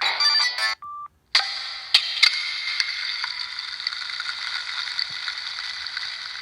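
Samsung SGH-E720 mobile phone playing its preloaded ringtones through its small speaker: a busy cluster of tones cuts off under a second in, a short steady beep follows, then a hissing, crackly sound-effect ringtone starts with a steady high pitch and two sharp clicks soon after, and runs on.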